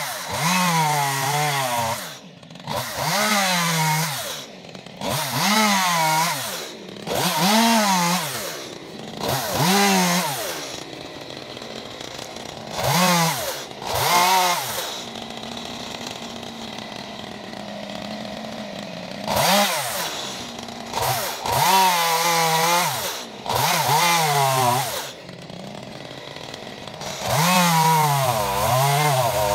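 Stihl chainsaw cutting through a felled conifer log, revved up again and again in bursts of a second or two, its pitch wavering as the chain bites into the wood. It drops to a quieter idle for several seconds in the middle, then revs again.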